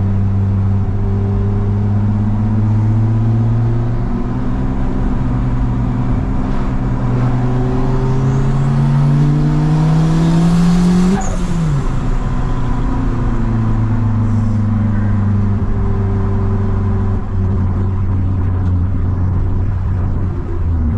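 Turbocharged Honda Civic D16Z6 engine droning steadily at cruise, heard inside the car. About halfway through, an engine-like pitch climbs for a few seconds and then drops sharply.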